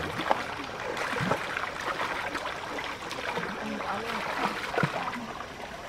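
Shallow stream running over rocks, with a few sharp splashes as hands work through the water.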